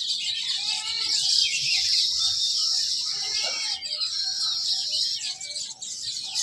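Many small birds chirping and chattering together in a dense, continuous chorus of overlapping high calls, with a few lower calls mixed in.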